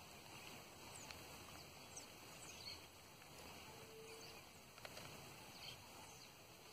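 Near silence: faint outdoor ambience at a pond with a few faint, high, short descending bird chirps and one brief low call about four seconds in.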